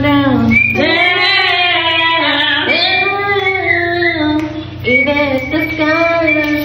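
A woman singing a string of long held notes, sliding between pitches, with short breaks between phrases.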